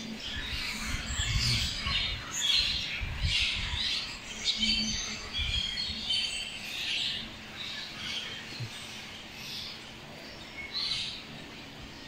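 A large flock of small birds perched in roof trusses, chirping and twittering over one another in a continuous chatter.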